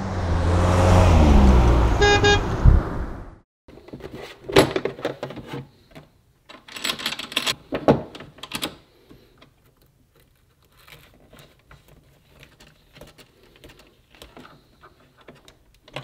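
A Class C motorhome driving past, its engine note falling in pitch as it goes by, with a short horn toot about two seconds in. Then, from about four seconds in, clicks and knocks of wires and plugs being handled in a transfer switch box, fading to faint ticks.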